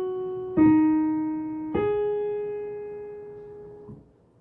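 Piano played with both hands on the black keys: a chord already ringing, then two more struck about a second apart, the second lower and the third higher. The last chord is held and fades until it is released near the end.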